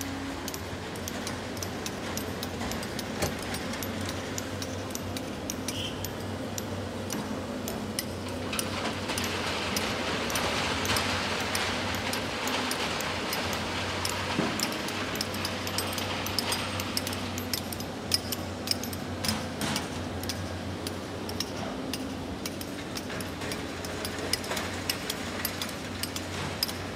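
Excavator diesel engine running steadily while rock and sand are loaded into a dump truck. Stones clatter with many sharp clinks, thickest in the second half, and there is a louder rush of material from about nine to sixteen seconds in.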